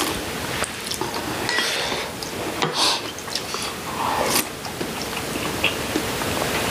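Close-miked eating sounds: chewing leafy seasoned greens and sipping soup from a spoon, with a few sharp clicks in between.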